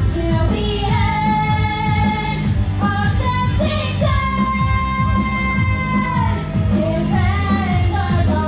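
Upbeat pop-rock song with a singer holding long notes over a steady beat.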